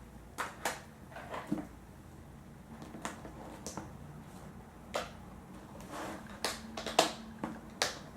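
Irregular light clicks and knocks of dishes, utensils and plastic takeout containers being handled while food is plated, with a cluster of sharper knocks near the end.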